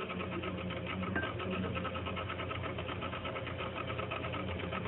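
Electric kitchen mixer running steadily: a motor hum with a fast, even rattle.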